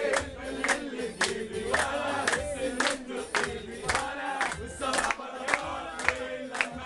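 A group clapping in time, about two claps a second, while singing together.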